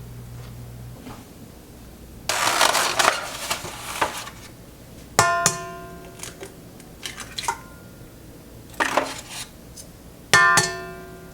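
Kitchen utensils and dishes: a scraping, rustling clatter, then two sharp clinks against a dish, about five seconds apart, each ringing on briefly, with light clatter between. A low steady hum cuts off about a second in.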